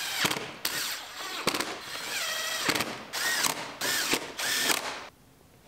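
Cordless drill driving screws through brackets into a plastic bumper cover, in several short runs with the motor whine rising and falling in pitch; it stops about five seconds in.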